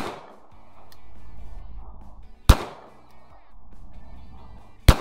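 Three pistol shots from a SIG Sauer P226 in .40 S&W, fired slowly about two and a half seconds apart, each with a short echoing tail, over background music.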